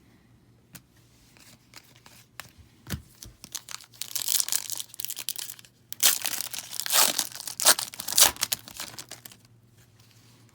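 A pack of Upper Deck hockey trading cards having its wrapper torn open and crinkled, in two loud spells of about two and three seconds after a few light taps.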